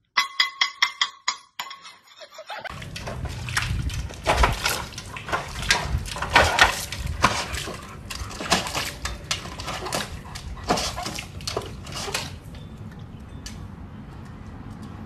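A dog stepping and stamping in a stainless steel bowl of water: irregular splashes and sloshing, with knocks of the metal bowl, most frequent in the middle. It opens with about two seconds of quick metallic clinking, around six a second.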